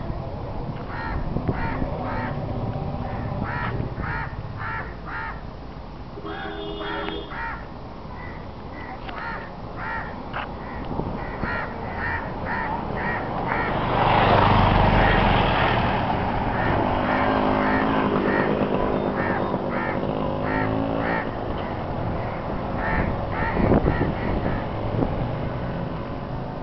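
Birds calling repeatedly in short sharp notes. About 14 seconds in, a vehicle passes close by and is loud for a couple of seconds, followed by a pitched engine drone that lasts a few seconds.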